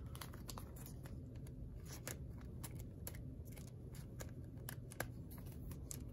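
A Panini Prizm trading card being slid into a soft plastic penny sleeve: faint, scattered clicks and rustles of the thin plastic against the card, over a low steady room hum.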